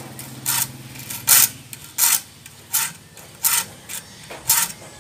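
Hand file stroking across the teeth of a handsaw clamped in a vise, six short even strokes about three quarters of a second apart, sharpening the dull saw.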